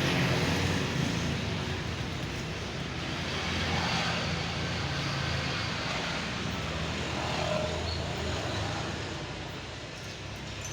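Steady road traffic noise, swelling slightly about four seconds in.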